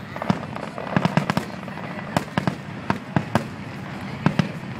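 Aerial fireworks shells bursting: an irregular run of sharp cracks and bangs, more than a dozen, several coming in quick clusters.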